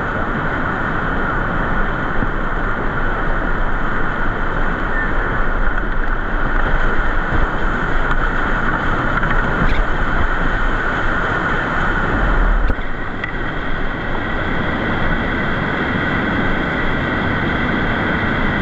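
Steady loud rush of river whitewater around a kayak running a rapid, dropping a little in level about thirteen seconds in.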